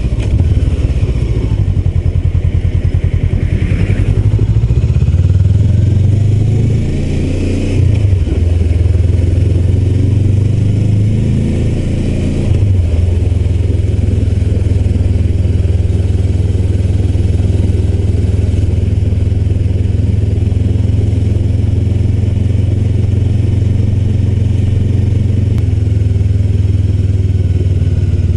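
Honda CBR400R's parallel-twin engine running as the motorcycle is ridden. Its note rises and falls several times in the first dozen seconds, then holds a steady low note.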